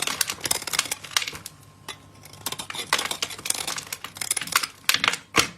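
A blade carving into a bar of soap: runs of crisp crackling and scraping strokes in three bursts, with a short lull in the middle and one sharp snap near the end.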